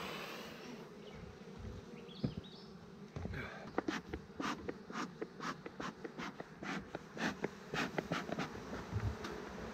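Honeybees buzzing around an opened hive, a steady hum. From about four seconds in, a run of short scratchy clicks comes about three times a second.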